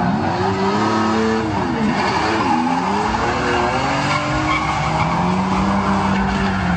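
Toyota 1GZ-FE V12 engine in a drifting Nissan S15, revving up and down on the throttle and then holding high revs, with tyres squealing as the car slides sideways.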